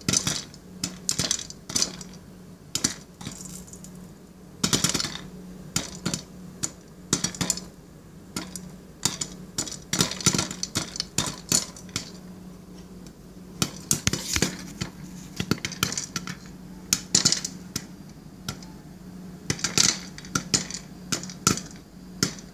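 Popcorn kernels popping: sharp, irregular pops coming several times a second, some much louder than others, over a steady low hum.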